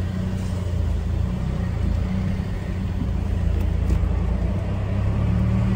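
Steady low rumble of a car's engine, heard from inside the cabin.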